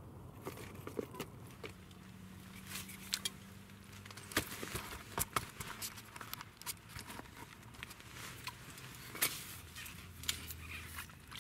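Irregular small clicks, taps and rustles of ice-fishing tackle being handled while a fish is brought in, with a few sharper knocks, over a faint low hum.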